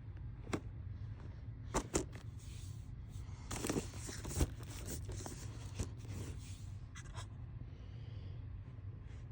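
Plastic Blu-ray cases being handled: a few sharp clicks and knocks, with a scraping rustle of cases sliding against each other in the middle, over a steady low hum.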